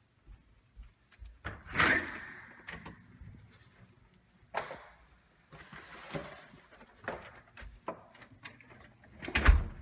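A door being opened and shut, with a string of knocks and clicks. The loudest thump comes near the end.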